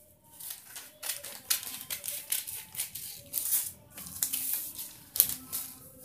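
Scissors cutting through a paper pattern sheet: a run of short, irregular snips, about two a second, with the paper rustling.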